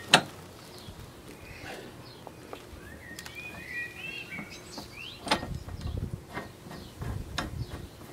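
Hand tools and metal suspension parts being handled: a sharp metallic click just after the start, then scattered clicks and dull knocks about five and seven seconds in. A few short chirps, like a bird, come in the middle.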